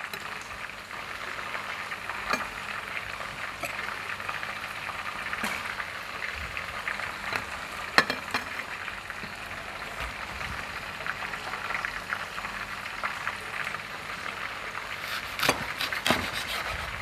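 Hot oil sizzling steadily as battered food fries. A few sharp knife knocks come through it, the loudest about eight seconds in and two close together near the end.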